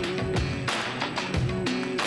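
Music with a beat: sharp percussive hits over held pitched notes.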